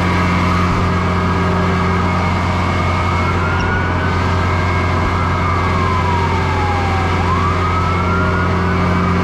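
Fire truck siren wailing in slow rising and falling sweeps, about two cycles, over a loud steady low engine drone.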